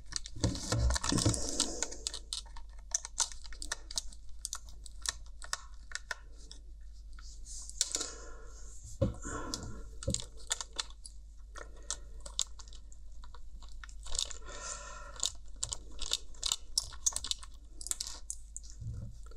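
Plastic Bluetooth headphones being handled and unscrewed with a small precision screwdriver: irregular clicks, ticks and scrapes of the metal tip and the plastic housing, with a few busier rustling stretches.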